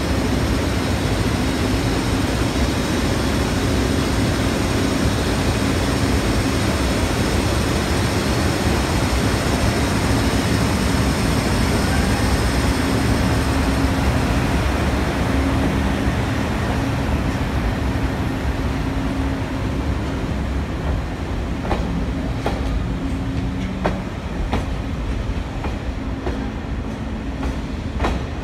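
EF65 electric locomotive moving slowly past with a steady whirring hum from its blowers. From about 21 seconds in, the following container flat wagons clack over the rail joints, their wheels clicking at irregular intervals.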